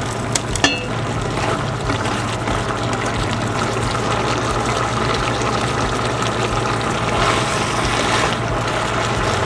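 Steady rush of running water, with a constant low hum beneath it and two short clicks about half a second in.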